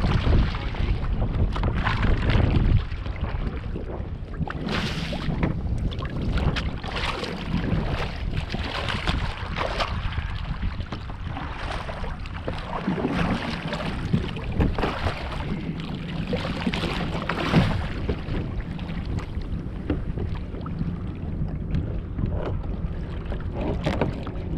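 Kayak paddle strokes splashing and water sloshing against the hull, with wind buffeting the microphone. The low wind rumble is heavier in the first few seconds.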